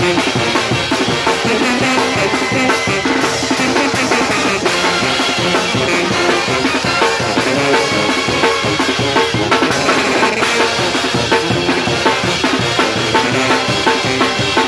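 Mexican brass band (banda) playing loud: bass drums with cymbals mounted on top and a snare drum keep a fast, steady beat while sousaphones play a bass line that steps from note to note.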